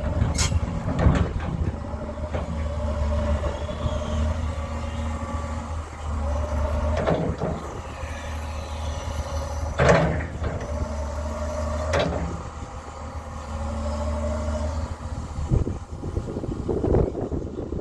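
Doosan 225 hydraulic excavator's diesel engine running, with a hydraulic whine that rises and fades several times as the machine works. Sharp metallic clanks come about 7, 10 and 12 seconds in, and the engine note drops late on.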